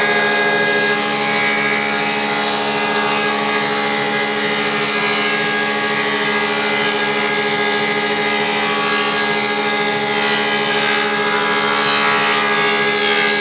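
Sedgwick thicknesser planer running, a loud steady machine hum with strong steady tones; its sound turns rougher for a moment about a second in and again over the last few seconds.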